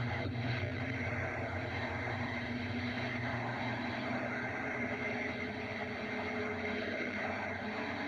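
A low, steady drone with faint held tones over it: a dark outer-space ambience sound effect.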